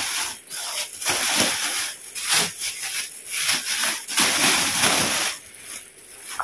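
Grocery bags rustling and crinkling as vegetables are handled and packed away, in irregular stretches with short gaps, thinning out near the end.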